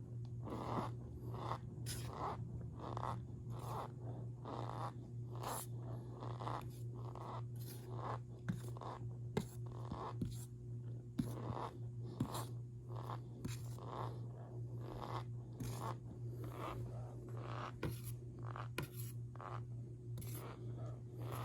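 Fine squeaky powder being squeezed and pressed, giving short squeaky crunches about one and a half times a second. A steady low hum runs underneath.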